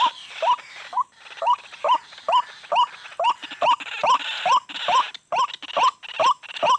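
White-breasted waterhen (ruak-ruak) calling over and over, a short rising note about two or three times a second, in an unbroken rhythmic series.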